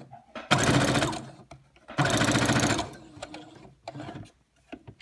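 Electric sewing machine stitching through an elastic band in two short runs of about a second each, stopping between them as the seam is curved. Then a few faint clicks as the band is handled.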